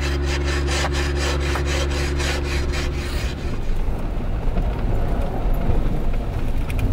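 Inside a Jeep driving on a snowy dirt road: a steady engine hum with a fast, even rattle of about six ticks a second for the first three seconds, then a rougher road rumble.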